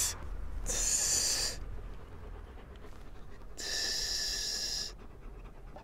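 A man hissing at a dog through his teeth, two long 'tsss' hisses, the second the longer, to catch the dog's attention.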